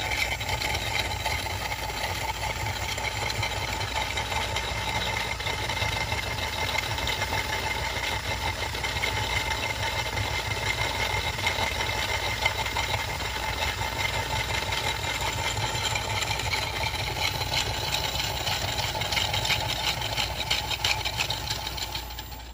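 Cordless drill running steadily with a spade bit boring through a block of hardened sugar: an even motor whine over the grinding of the bit in the sugar, dying away near the end.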